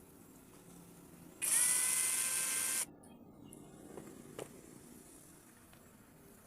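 A small electric motor whirs at high speed for about a second and a half, with a quick spin-up at the start and a sudden stop. A couple of small clicks of handling follow.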